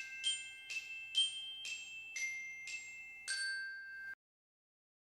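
Short intro jingle of bright, bell-like mallet-percussion notes struck about twice a second, each ringing on under the next; it stops abruptly about four seconds in.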